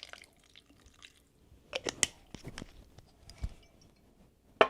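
Kitchen handling sounds as white vinegar is added to a bowl of cucumbers: scattered clicks and knocks of bottles and spoons, with a cluster about two seconds in, a dull thump later and a sharp click near the end.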